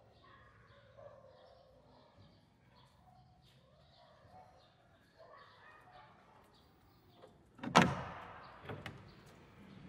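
Faint background voices and ambience, then about eight seconds in a sudden loud bang with a ringing tail, followed by a smaller knock about a second later.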